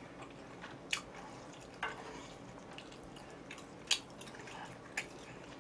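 Quiet wet eating sounds from a person eating noodles: a handful of short, sharp smacks and clicks, spaced about a second apart, with low chewing between.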